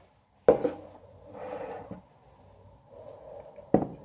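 Aluminium drink can and glass set down on a tabletop: two sharp knocks about three seconds apart, with a faint rubbing sound between them.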